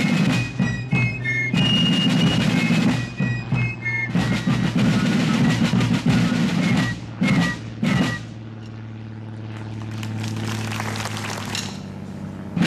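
A fife and drum corps playing: shrill fifes over snare drums for the first few seconds, then the drums alone, then short fife phrases. About two-thirds of the way in the band drops to a softer low drum roll that swells for a few seconds before the full corps comes back in.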